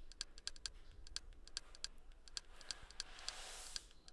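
Computer keyboard keys pressed in quick succession, faint clicks at about four a second as a menu is scrolled through.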